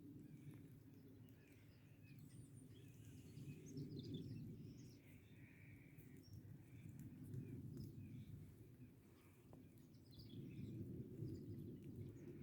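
Near silence: faint outdoor ambience with a low rumble and scattered faint bird chirps.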